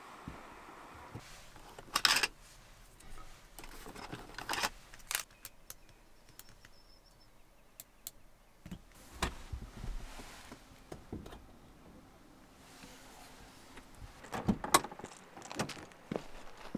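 Clicks, knocks and light rattles of camping gear being handled on a wooden floor, including small LED puck lights being switched on. A louder clatter comes about two seconds in and another cluster of knocks near the end.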